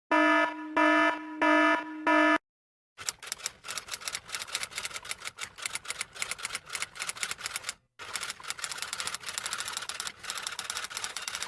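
An electronic buzzer beep sounds four times, each about half a second long. After a short gap comes a long run of rapid key-typing clicks, broken once by a brief pause.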